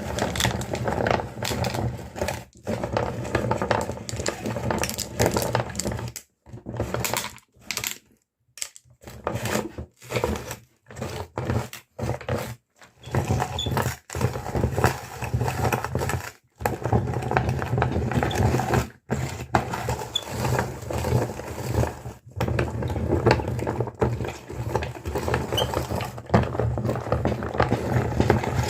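Electric meat grinder running with a steady motor hum while it crunches candy, with dense crackling over the hum. The sound cuts out to silence several times for short moments near the middle.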